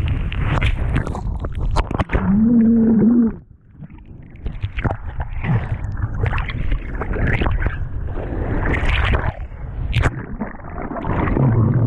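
Seawater splashing and sloshing around a GoPro held by a surfer sitting in choppy surf, with wind buffeting the microphone as a low rumble. The sound surges unevenly and drops away briefly about three and a half seconds in. A short pitched tone sounds about two seconds in.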